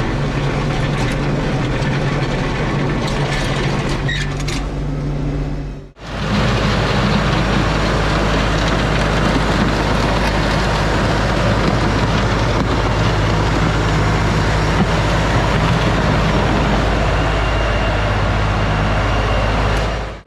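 LS MT357 compact tractor's diesel engine running steadily while working. The sound breaks off abruptly about six seconds in, then resumes just as steady.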